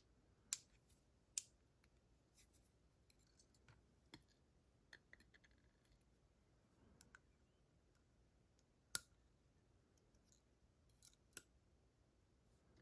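Faint, sparse small metallic clicks and taps from the key pins and springs being picked out of a Dorma DC500 lock cylinder's chambers, with a few sharper clicks about half a second, a second and a half, and nine seconds in.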